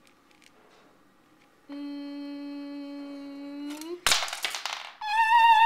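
A child making toy-ride sound effects with the voice. First a steady hummed note for about two seconds that rises at the end, then a sharp knock and a short hissing burst. Near the end comes a high, slowly falling vocal cry.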